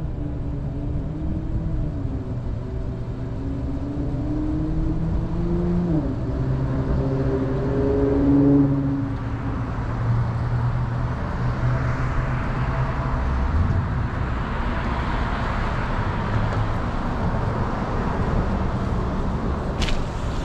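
Car driving slowly: the engine note rises for the first few seconds, drops suddenly about six seconds in, then fades under a steady rushing noise. One sharp click near the end.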